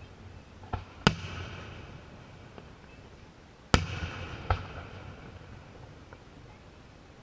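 Aerial fireworks shells booming: four sharp bangs, the loudest about one second and nearly four seconds in, each trailing off into a fading rumble.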